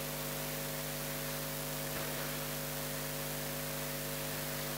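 Steady electrical mains hum from the sound system, several unchanging tones over a faint hiss.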